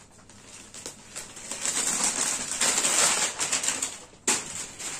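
Printed cambric cotton suit fabric rustling as it is unfolded and spread out by hand, with a short sharp snap near the end.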